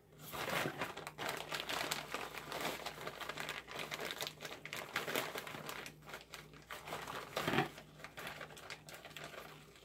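Plastic bag of brown sugar crinkling as it is handled and opened.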